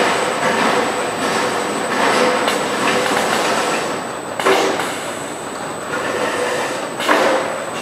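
Conveyor running, with empty metal gallon cans rattling and clanking along it into a four-head paint filling machine and lining up under the fill heads. Two louder sharp sounds stand out, about four and a half and seven seconds in.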